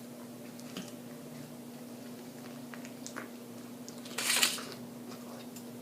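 Eating at the microphone: quiet chewing with small mouth clicks, and one louder crunching bite of fried food about four seconds in. A faint steady hum runs underneath.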